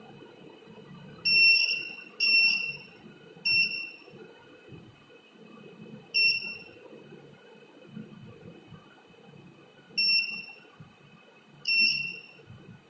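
Small piezo buzzer sounding in short, shrill beeps, six of them at uneven intervals, each with a brief fading tail. The buzzer sounds each time the hand-held clip connection closes the circuit.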